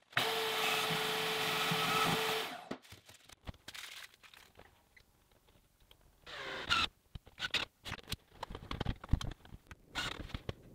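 A DeWalt portable bandsaw cutting through a metal piano hinge: a loud, steady hiss with a steady hum that stops abruptly after about two and a half seconds. Then scattered clicks and knocks, and a short whir about six and a half seconds in as a cordless drill drives a screw into the hinge.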